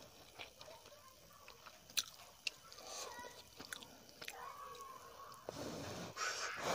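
Close-miked eating sounds: fingers working curry and rice, chewing and biting, with a few sharp mouth clicks, and a louder noisy stretch near the end as food is brought to the mouth.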